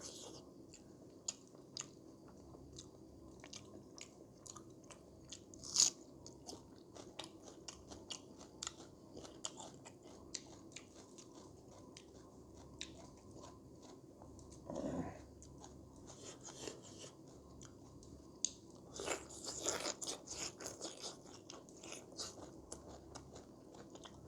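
A person chewing and crunching food close to the microphone, with many small wet mouth clicks and a louder crunch about six seconds in; this is eating of Naga-style pork curry. A short low vocal sound comes about halfway through, and a busier spell of chewing follows a few seconds later.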